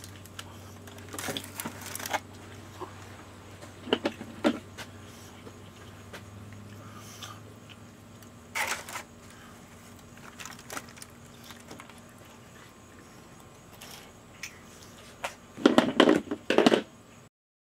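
Aluminium foil crinkling and rustling in short, irregular bursts as a foil wrap is pulled open and a smoked pork loin is lifted out of it with kitchen utensils. The loudest burst of crinkling comes near the end.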